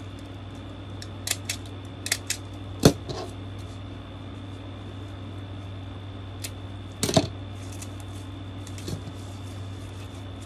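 Scattered sharp clicks and snaps of hands working ribbon and craft tools, the loudest about three seconds in and a double snap about seven seconds in, over a steady background hum.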